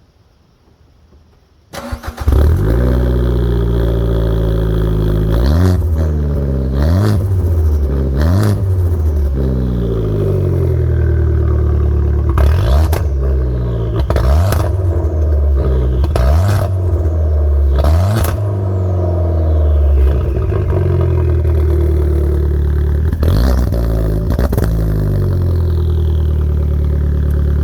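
2013 Fiat 500 Abarth's turbocharged 1.4-litre four-cylinder engine starting up through its single-exit valved exhaust about two seconds in. It then idles and is revved in short blips about nine times, with sharp cracks around several of the blips.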